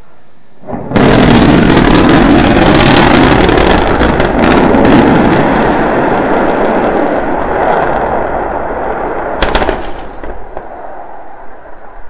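Starship SN9's rocket engines firing for the landing burn and the vehicle exploding on the landing pad: a sudden, very loud crackling roar with sharp cracks through it, dying down after about nine seconds.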